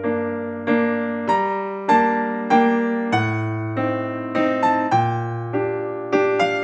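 Background music: a gentle piano tune, a new note or chord struck about every 0.6 seconds and fading away, over held bass notes.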